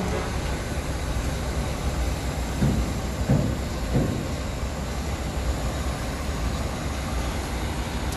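Steady low rumble of heavy machinery running, with three short knocks about two and a half to four seconds in.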